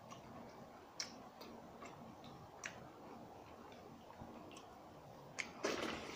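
A hand mixing and scooping watered rice (pakhala) in a steel pot, heard as a few faint, scattered clicks of fingers against the metal, with a louder noisy burst near the end.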